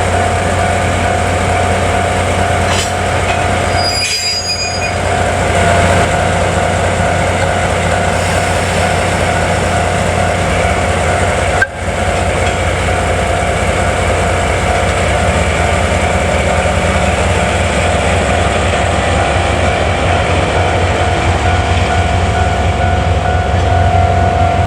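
DE10 diesel-hydraulic locomotive and its 12-series passenger coaches passing, engine running and wheels rolling on the rails, with a level-crossing alarm ringing as a steady high tone. A single sharp click about twelve seconds in.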